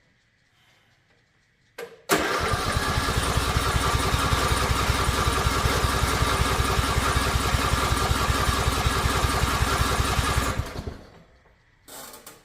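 Riding lawn mower engine cranking on its electric starter for about eight seconds with a fast, even chug, trying but not catching, then stopping when the key is released. A click just before the cranking starts.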